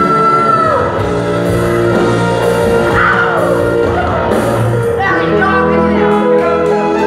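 Live rock band: a male singer's long, high held note ends under a second in, then the band plays on without vocals, an electric guitar bending notes over the accompaniment.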